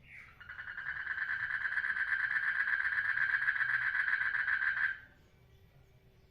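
A frog giving one long, rapid pulsed trill lasting about four and a half seconds. The trill builds up over its first second and then stops abruptly. It is just preceded by a short falling chirp.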